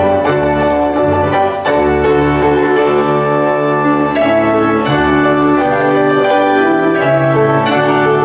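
Organ-toned keyboard music playing full, sustained chords over a moving bass line.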